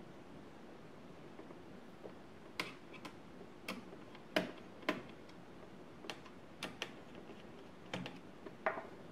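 Small screwdriver undoing the screws of a laptop's heatsink: a run of sharp metallic clicks and taps, about ten, irregularly spaced, starting a couple of seconds in.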